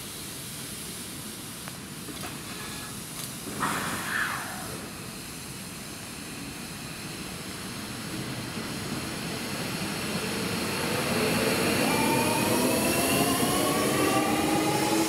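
Electric commuter train pulling out of the station, its traction-motor whine climbing in pitch as several rising tones, growing louder over the last few seconds. There is a brief higher tone about four seconds in.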